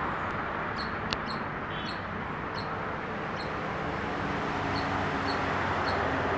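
Indian palm squirrel calling: a steady run of short, sharp, high chirps, roughly one every half second to a second, over a steady background noise. A single sharp click about a second in.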